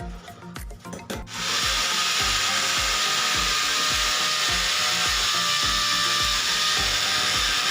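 Power drill running steadily under load for about seven seconds, starting about a second in, over background music with a steady beat.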